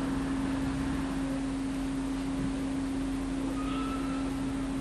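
A steady hum holding one pitch over an even background hiss, with a faint brief higher tone a little before the end.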